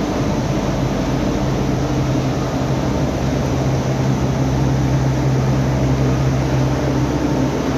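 Steady drone of industrial plant machinery running, with a strong low hum.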